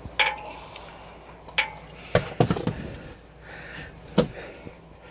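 Hands and tools knocking and clinking against the engine and frame while a loosened oil filter is worked off by hand. There are a handful of sharp knocks, several close together near the middle.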